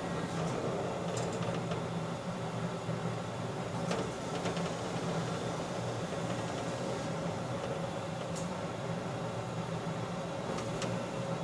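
Steady mechanical hum of a Schlatter rail butt-welding machine standing ready between welds, with a few light metallic clicks as the rail is handled at the clamps.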